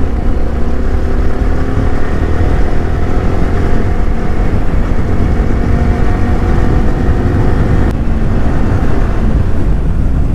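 Motorcycle engine running at a steady cruising speed on the road, with heavy wind buffeting on the helmet microphone.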